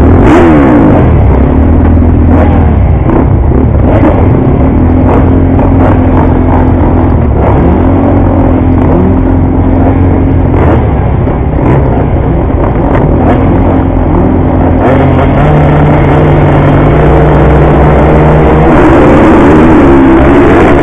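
Several motocross bikes' engines running and held at revs at the start line, their pitches shifting up and down. Near the end the engines rise in pitch together as the pack launches off the line.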